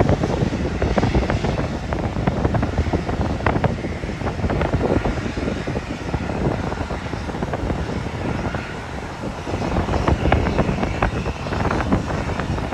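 Jet airliner engine noise, a steady rush, with wind buffeting and crackling on the microphone.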